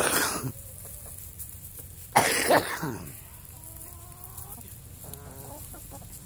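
Backyard chickens: two loud, harsh squawks, one at the start and one about two seconds in, the second dropping in pitch at its end, then softer, fainter clucking from the flock.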